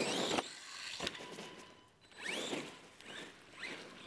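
Electric RC monster truck (Zombie 8E) driving on a dirt track, its motor whine rising and falling in pitch several times as the throttle is worked, over a rough running noise with a couple of sharp knocks in the first second or so.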